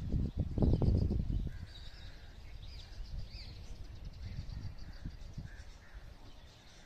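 Birds chirping in the trees over a low outdoor background, with a loud low rumble in the first second and a half.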